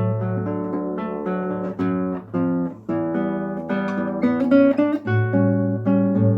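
Solo acoustic guitar playing a Brazilian choro, a quick plucked melody over steady bass notes.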